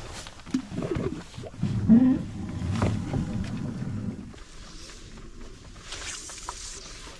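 Knocks and low rumbling in an aluminium rowboat as a man at the bow handles the anchor rope. The noise stops suddenly about four seconds in, leaving a quieter steady hiss.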